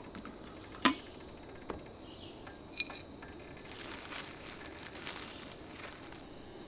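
Camp coffee being made by hand: a sharp knock about a second in and a ringing clink near three seconds, then a plastic packet crinkling for a couple of seconds as it is handled over a French press.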